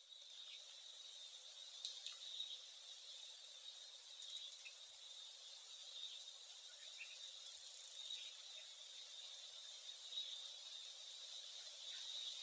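Steady chorus of insects, a faint, continuous high-pitched chirring with no break.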